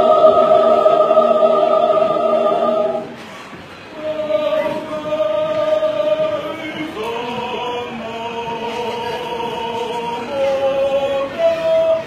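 Church choir singing a hymn in Fijian, in several parts on long held notes. The held chord breaks off about three seconds in; after a short pause the choir comes back in on new sustained notes.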